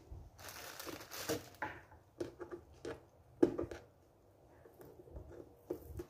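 Plastic packaging crinkling and rustling as it is taken off a new coffee maker, with scattered clicks and knocks from handling the machine; the sharpest knock is about three and a half seconds in.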